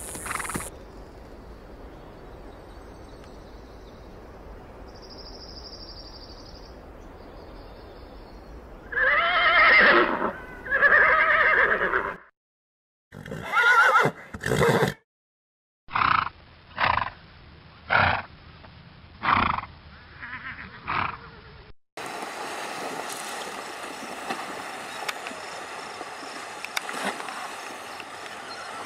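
Wild stallions squealing as they fight: two long, wavering squeals after several seconds of faint hiss, then a run of about seven short squeals, about one a second. Near the end comes a steady rush of water noise as horses splash through a river.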